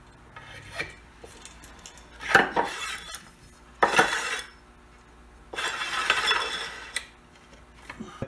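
Metal lamp rod and hardware clinking, rattling and scraping as a wooden lamp column is slid over the rod and fitted to the base, in several separate bursts with a few small clicks.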